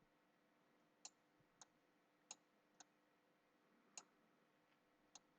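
Near silence broken by about six faint, sharp clicks at irregular intervals.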